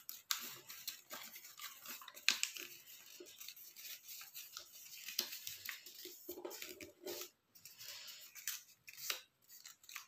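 Square origami paper crinkling and rustling in faint, scattered crackles as fingers fold and crease a side flap of a flapping-bird base.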